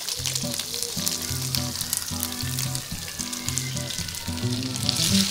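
Thin-sliced beef with garlic and onion sizzling in a nonstick frying pan, a dense steady crackle of small pops as it fries in the fat rendered from the meat. The beef is browned and nearly cooked. Background music plays underneath.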